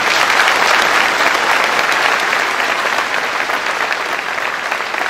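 Crowd applauding: dense clapping that slowly dies down.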